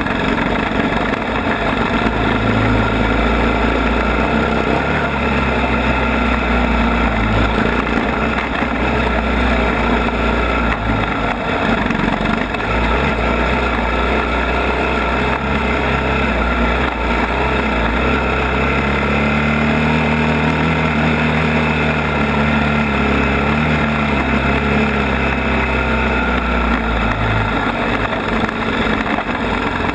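ATV engine running under way, its pitch rising and falling with the throttle over the second half.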